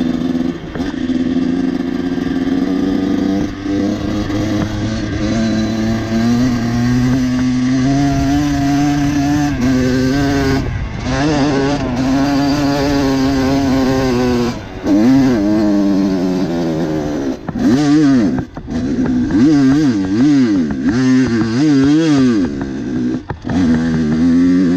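Dirt bike engine under load, holding fairly steady revs at first, then revving up and down again and again in quick throttle blips, with brief cuts of the throttle, as it climbs through rocks.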